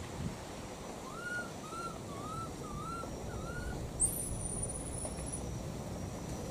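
High-pitched animal calls. First comes a run of five short, arched whistled notes, about two a second. About four seconds in, a single very high, thin whistle rises sharply and then holds for over a second.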